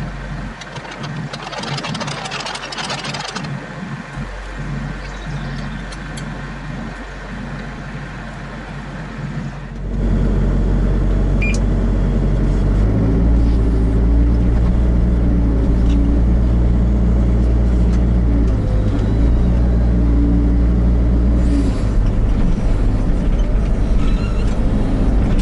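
Kubota KX121-3 mini excavator's diesel engine running steadily, working its hydraulics. Its note steps up and down under load. About two seconds in there is a short scraping rattle, and about ten seconds in the engine suddenly becomes much louder.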